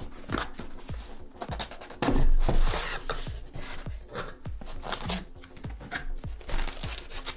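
Cardboard packaging being handled: a box sleeve slid off, the lid lifted and a paper insert taken out, in a string of irregular scuffs and rustles with a louder rubbing stretch about two seconds in. Quiet background music runs underneath.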